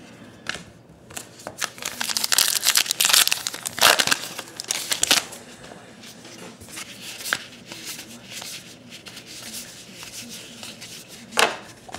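Crinkling and tearing of a trading-card pack wrapper being opened and handled, loudest in a run of crackly bursts from about two to five seconds in, then softer rustling.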